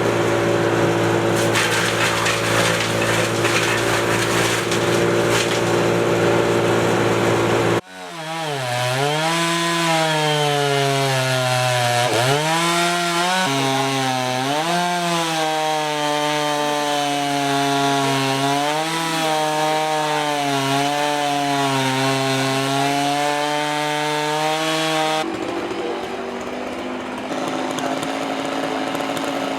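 Two-stroke STIHL chainsaws running and cutting wood, the engine pitch dipping and climbing again and again as the chain bogs in the cut and revs back up. The sound changes abruptly about 8 s in and again near the end.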